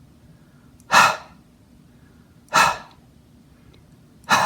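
A man repeatedly voicing the breathy /h/ phoneme: three short puffs of air from an open mouth, about a second and a half apart, each fading quickly.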